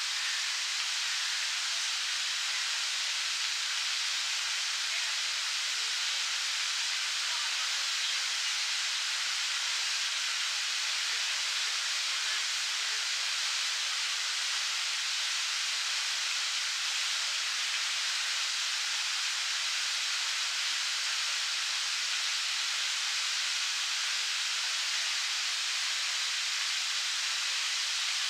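Park fountain's tall water jet spraying and falling back into its basin, a steady, even splashing hiss.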